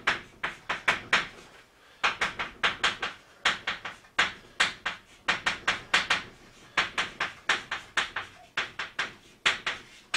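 Chalk writing on a blackboard: quick runs of sharp taps and short scrapes, one for each stroke of the characters, with brief pauses between runs.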